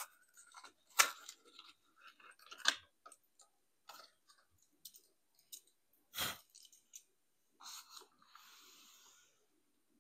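Faint scattered clicks and rustles of small objects being handled, with the loudest click about six seconds in and a short scraping rustle just after eight seconds.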